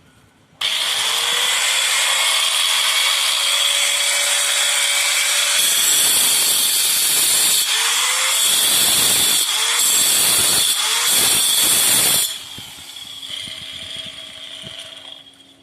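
Handheld marble grinder's electric motor switched on, spinning up with a rising whine to a steady high-pitched run. Its sound swells and dips unevenly for several seconds, then it is switched off and winds down. This is the grinder running on its newly fitted bearing after the bearing replacement.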